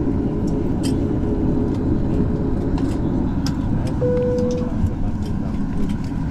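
Steady low rumble inside the cabin of a Southwest Boeing 737 on the ramp, its engines running. A short, steady higher tone sounds briefly about four seconds in.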